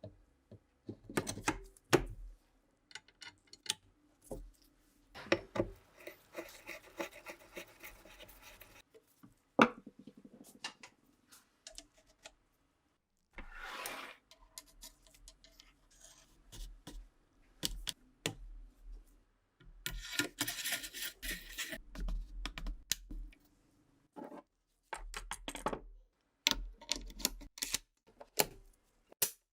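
Hand work on rifle parts: scattered clicks and knocks, with two stretches of scraping or rubbing a few seconds long and one sharp knock about ten seconds in.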